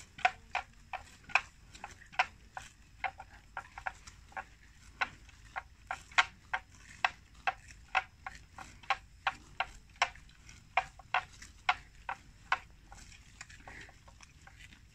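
Water buffalo cropping grass close by: sharp tearing and crunching bites, about two or three a second, that stop a couple of seconds before the end.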